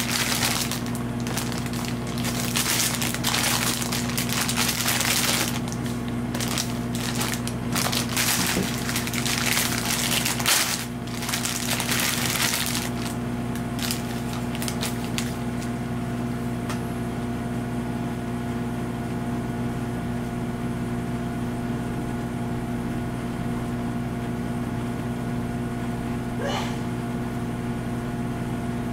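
Clear plastic bags holding a figure's parts crinkling and rustling as they are handled and opened. The crinkling stops about halfway through, leaving a steady low hum.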